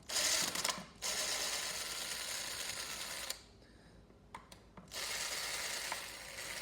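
Phillips screwdriver backing out the long screws that hold a speaker's tweeter: runs of fast mechanical clicking, broken by a pause of about a second and a half starting around three and a half seconds in.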